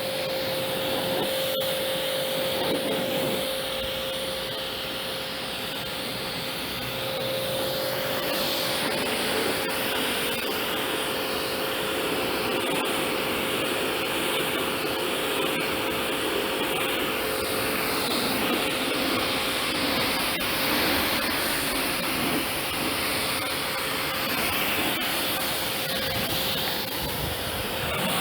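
Kärcher K7 electric pressure washer running, with a steady motor whine under the hiss of its water jet spraying.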